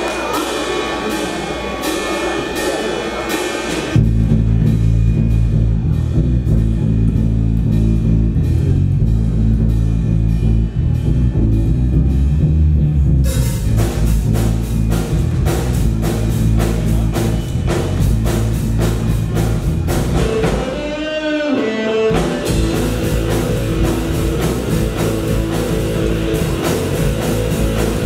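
Live rock band playing an instrumental intro on drum kit, bass guitar and electric guitars. It opens with an even ticking beat, then drums and bass come in loud about four seconds in, and the guitars join about thirteen seconds in. About twenty seconds in there is a falling pitch slide as the bass drops out briefly, then the full band comes back in.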